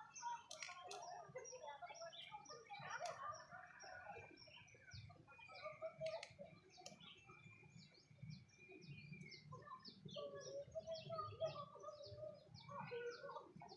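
Faint birds calling outdoors: short high chirps repeat quickly and evenly throughout, with a long steady high note held for several seconds in the middle.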